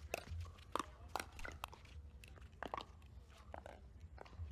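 Pickleball paddles popping against a hollow plastic pickleball in a fast rally at the net, several sharp hits about half a second to a second apart.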